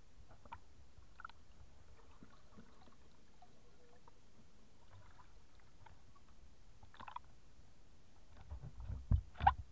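Faint muffled water sloshing and small knocks against a waterproof action camera held at and under the surface of shallow sea water, with a cluster of louder low thumps and a sharp knock near the end.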